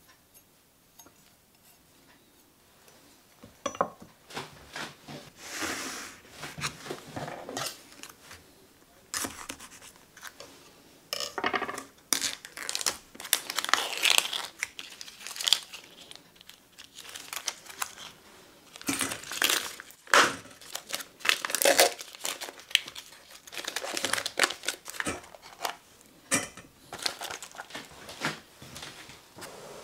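Plastic film and wrapper of a tofu pack being torn open and crinkled by hand: irregular crackling and rustling that starts a few seconds in and keeps on in uneven bursts.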